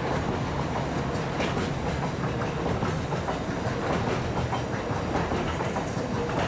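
Double-deck car-transport wagons of a passing train rolling by at speed, wheels clattering over the rail joints in a steady rumble.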